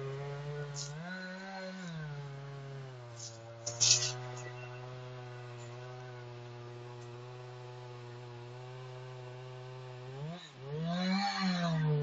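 Two-stroke chainsaw running steadily at high revs, rising briefly in pitch twice: about a second in and near the end. A single sharp crack sounds about four seconds in.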